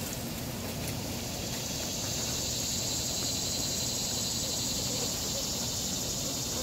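Steady high drone of insects, even and unbroken, over a low rumbling background.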